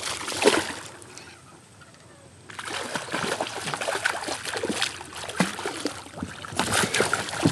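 A hooked smallmouth bass thrashing and splashing at the water's surface. A splash at the start, a lull of about two seconds, then near-continuous splashing that gets louder near the end.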